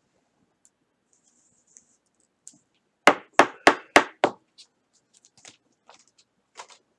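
Five quick, sharp knocks on a hard surface, about three a second, about three seconds in, then scattered faint clicks.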